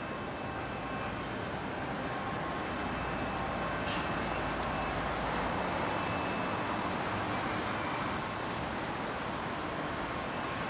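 Steady outdoor rumble and hiss, with one sharp click about four seconds in.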